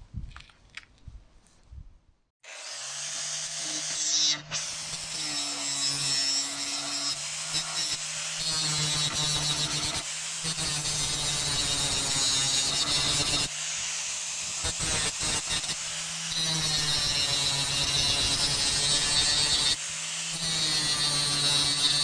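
Angle grinder with a thin cutting disc cutting into a rusty steel axe head: a steady motor hum under a harsh grinding hiss. It starts about two seconds in and eases off briefly a few times as the pressure on the cut lets up.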